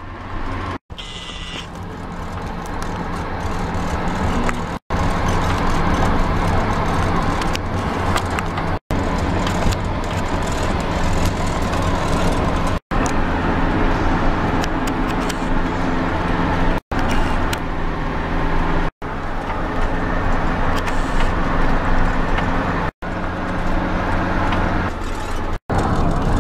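Engine and road noise heard inside a moving road vehicle, a steady low hum over tyre and wind noise. The sound cuts out for a split second several times, every few seconds, at joins between clips.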